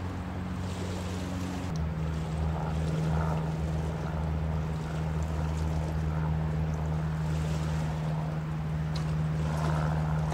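A steady low engine drone that drops slightly in pitch a couple of seconds in and then holds, with faint crunching of footsteps on beach pebbles.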